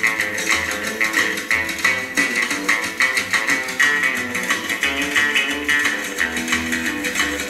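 Instrumental break of a rock and roll song: guitar over bass guitar with a steady beat.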